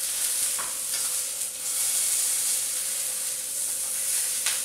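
Stuffed pork fillets sizzling steadily in a hot frying pan as they are seared to seal them before going into the oven, with a few light clicks.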